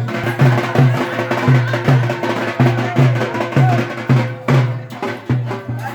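Loud drum-band music with a deep drum beating steadily, about three strokes a second, under denser drumming and melody.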